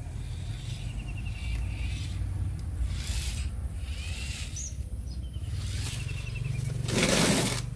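Outdoor ambience: a steady low rumble with faint bird chirps, and a short loud rush of noise near the end.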